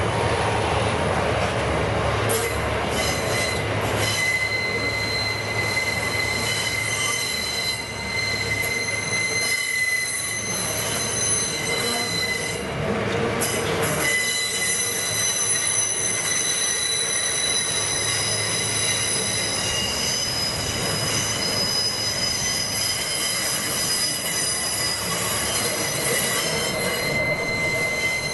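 Loaded coal hopper wagons rolling past on a curve, their wheels squealing against the rails in several steady high-pitched tones over a continuous rumble. The squeal thins out briefly near the middle and returns.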